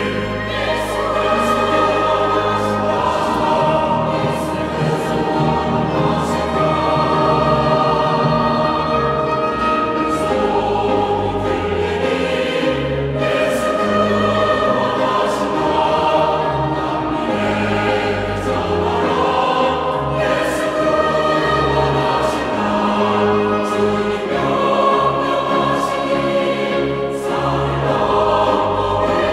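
Mixed church choir singing a hymn anthem in Korean, with piano, organ and violin accompaniment under sustained low bass notes.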